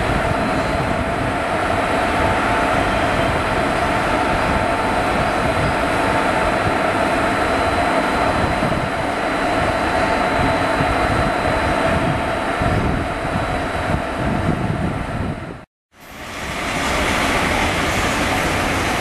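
WAM-4 25 kV AC electric locomotive standing after start-up, its machinery running with a steady hum and several held whining tones. The sound cuts out abruptly near the end, then builds back up over about a second.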